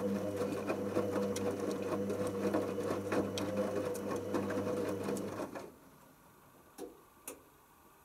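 Hoover Optima OPH714D washing machine's drum motor turning a wet load of towels, a steady hum with the irregular knocking and sloshing of the tumbling laundry. The motor stops about five and a half seconds in, and two short clicks follow.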